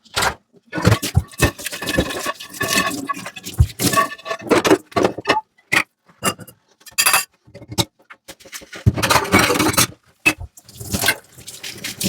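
Dishes washed by hand in a sink: water splashing and running in spurts, with a longer gush about nine seconds in, among irregular clinks and knocks of dishes.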